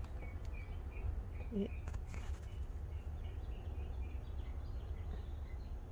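Quiet outdoor background: a steady low rumble with faint bird chirps scattered throughout.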